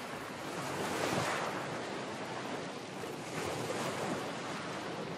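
Sea surf washing in, a steady rushing noise that swells about a second in and again past the middle.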